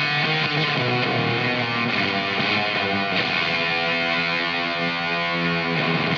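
Electric guitar played through a Teisco Fuzz pedal: thick, distorted fuzz notes and chords held with long sustain, changing a few times.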